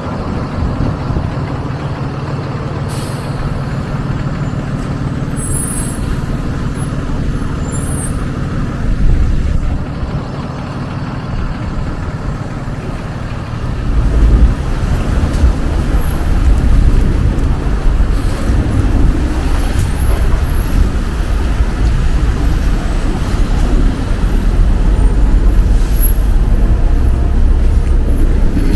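Street traffic dominated by a heavy road vehicle such as a truck or bus: a steady engine hum, a few brief high squeals in the first third, and a heavier low rumble starting about halfway through.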